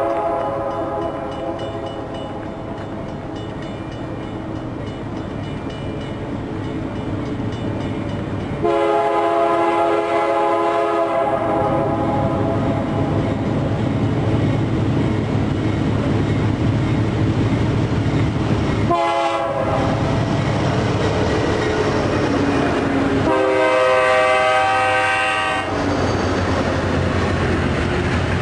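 Multi-chime train horn sounding four blasts: a long one that fades out, a second after a sudden jump in level, a short toot, and a fourth near the end, over the steady low rumble of the passing train.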